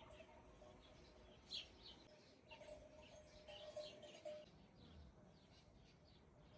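Faint birds chirping, short scattered calls, over a low background hum. A faint steady tone underneath stops about four seconds in.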